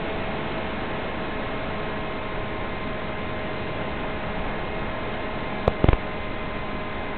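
Steady hiss of static from an analog FPV video link's audio channel, with faint steady hum tones underneath. A couple of sharp pops come about six seconds in.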